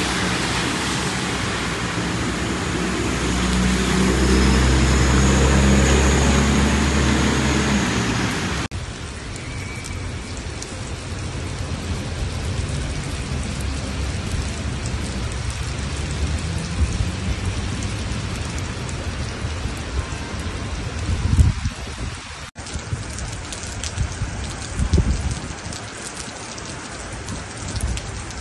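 Heavy rain pouring onto wet streets and pavement, a steady hiss of falling water, across three short clips that cut abruptly from one to the next. The first clip also carries a low steady hum, and a few short low thumps stand out in the later clips.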